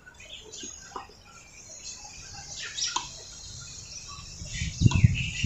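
Birds chirping in the background with short high calls, and a few low thumps near the end.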